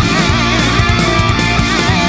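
Background heavy rock music: distorted electric guitar playing a lead line with wavering, vibrato-like bends over a steady beat.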